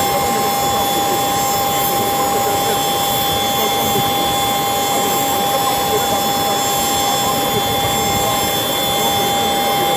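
An aircraft's turbine engine running steadily: a constant whine of several held tones over a loud rushing noise.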